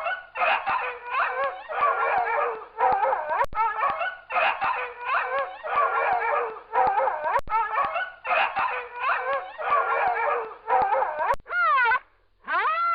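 A dog barking and howling, about a dozen short calls in quick succession, each wavering in pitch. Near the end come two longer calls that sweep down in pitch.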